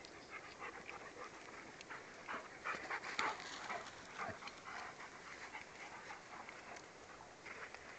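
Dogs playing at close range: panting, with short scuffling and rustling sounds that are busiest about three seconds in.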